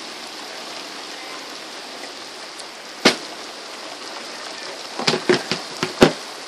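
Steady rain pouring during a thunderstorm, an even hiss throughout. A sharp knock comes about three seconds in, then a quick cluster of sharp clicks and knocks near the end.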